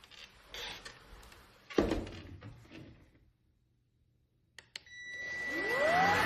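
Handling noise and a thump, then two clicks and the Bissell PowerClean cordless stick vacuum's motor spinning up, its whine rising in pitch and levelling off at running speed near the end.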